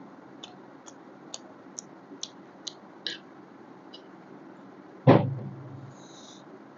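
Close-miked eating: chewing with short wet mouth clicks about twice a second. About five seconds in there is a loud sudden thump, the loudest sound, and a short hiss follows.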